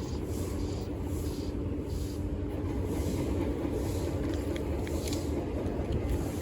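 A boat's motor running steadily, a low rumble with a constant hum, with wind and water hiss over it.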